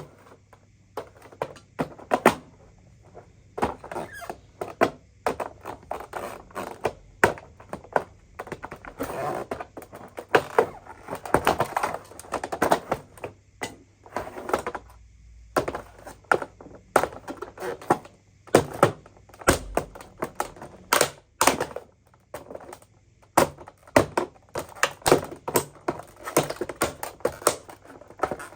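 Irregular clicking, knocking and clattering of hard objects being handled, with short scraping stretches between the clicks.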